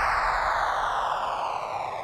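Electronic background music trailing off in a falling whooshing sweep that grows quieter.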